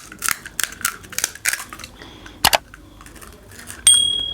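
Crisp pani puri shells crunching in a quick run of sharp cracks, with one louder crack about halfway through. Near the end comes a single metallic clink that rings on and slowly fades.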